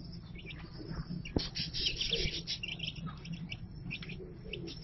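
Aseel chicks cheeping in short, high chirps as they peck at a dish of grubs, with a sharp tap about a second and a half in.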